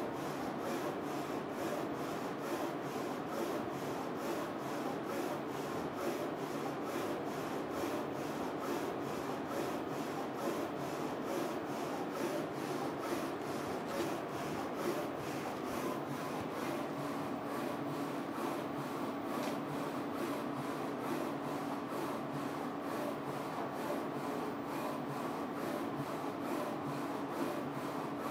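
Focus Alpha-Jet A2 UV printer running a print on a mug in its rotary jig: steady mechanical noise of the print-head carriage traversing the rails. A steady hum joins a little past halfway.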